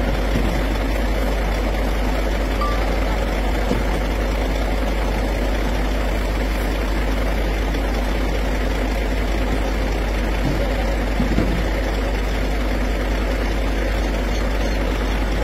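A truck crane's engine idling steadily while its cables hold the overturned truck.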